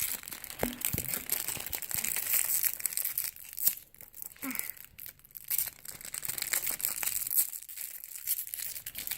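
Plastic wrapping and packaging being crinkled and torn open by hand, an irregular crackling with small clicks.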